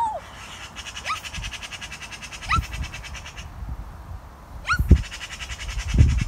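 Wild birds singing: a rapid, steady trill with short rising chirps, over a few low thuds.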